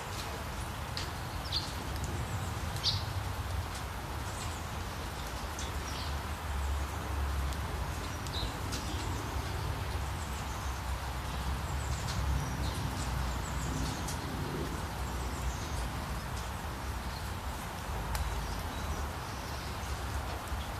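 Nature ambience: a steady rush of flowing water with a low rumble underneath, and short, high bird chirps scattered throughout.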